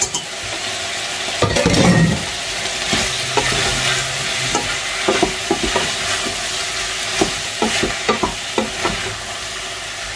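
Meat frying in a pot with a steady sizzle as onions and tomatoes are tipped in with a louder rush about one and a half seconds in. A spoon then stirs and scrapes, knocking against the pot again and again.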